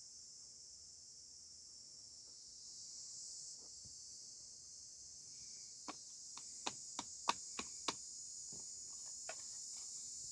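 Steady high-pitched insect chorus, like crickets. A little past halfway comes a quick run of about seven sharp clicks, then a few fainter ones.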